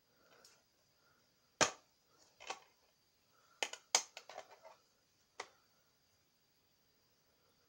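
Plastic DVD keep case being handled and opened and the disc unclipped from its hub: a series of sharp plastic clicks and snaps, with a quick cluster of clicks in the middle and a last single click near the end.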